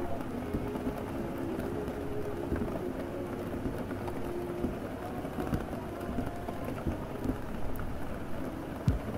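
Steady rain, with muffled music underneath whose notes fade out about halfway through. Scattered small clicks and a couple of dull thumps near the end.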